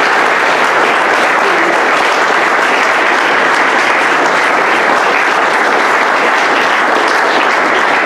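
A room full of people applauding, a loud, steady run of clapping.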